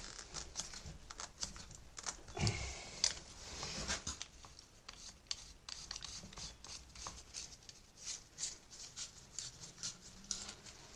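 Handling noise from fitting a garden hose onto a Gardena-type connector: scattered light clicks, scrapes and rubbing, with one louder knock about three seconds in.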